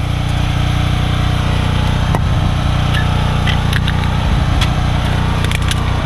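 A small motor running steadily with a low, even drone, with a few light clicks and knocks about two seconds in and again near the end.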